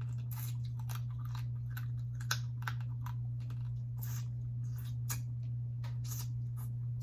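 A person eating cold blue crab close to the microphone: irregular crunches and clicks of crab shell and chewing, the sharpest crack a little over two seconds in, over a steady low hum.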